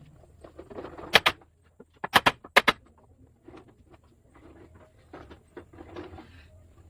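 Sharp knocks on a hard surface, three quick pairs a little over a second in and around two to two and a half seconds in, amid lighter clattering and rustling.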